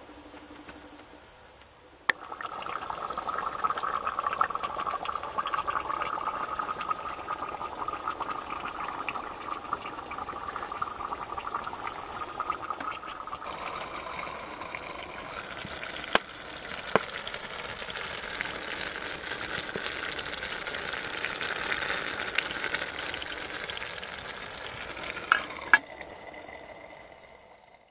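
Water heating in a lidded metal camping pot over a small wood fire, with a steady hiss and bubbling. There are a few sharp metallic clinks as the lid is handled, one pair after about sixteen seconds and another pair just before the sound stops.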